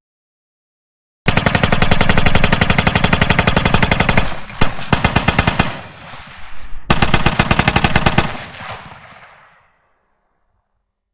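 Machine gun firing two long bursts of rapid automatic fire. The first starts about a second in and ends with one sharp single shot. The second follows a couple of seconds later, and the echo of the shots dies away near the end.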